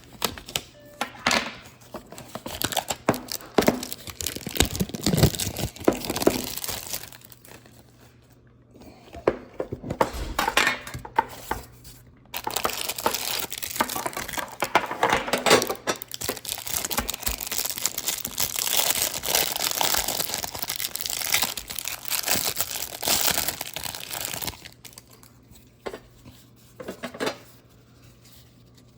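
Plastic wrapping of a trading-card tin and its card packs being crinkled and torn open by hand, in several bouts of crackling with sharp clicks and knocks, the longest and densest in the middle with brief quieter pauses.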